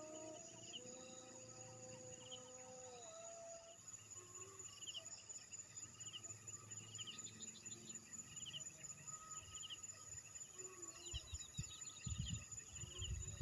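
Evening insects chirring: a steady high-pitched buzz with short chirps repeating throughout. A faint, drawn-out wavering tone sounds over the first few seconds, and a few low knocks come near the end.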